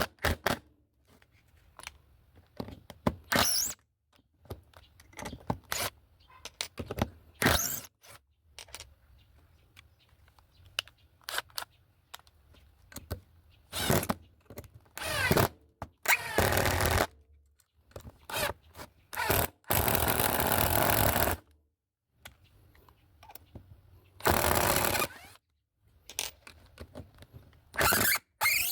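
12 V cordless impact driver (Bosch GDR 120-Li) driving long gypsum screws into wood in several short bursts, the longest lasting about a second and a half about 20 seconds in. Clicks and knocks of handling come between the bursts.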